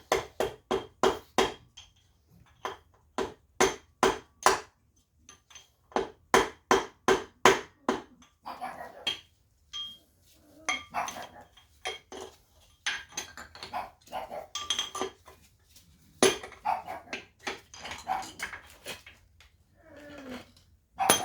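A run of sharp metal clicks and taps, about three a second, from hand tools working on an RB20DET engine block during crankshaft removal. From about eight seconds in they thin out, and a small dog barks at intervals.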